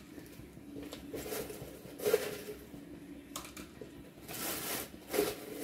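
Clear plastic bag crinkling and rustling as it is handled and opened, in several short rustles.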